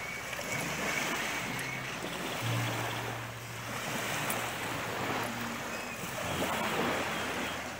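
Small waves from a calm sea washing onto a sandy beach, the wash swelling and fading every couple of seconds, with a faint low hum for a few seconds in the middle.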